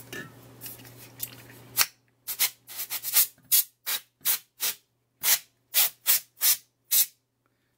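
Can of compressed air spraying: a steady hiss for about two seconds, then about fifteen short, sharp spurts, as from a can that is nearly empty.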